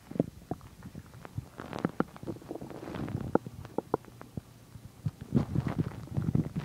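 Human stomach growling and gurgling while digesting a meal of chicken and milk: a run of irregular bubbling pops and low rumbles, busiest about two to three seconds in and again near the end.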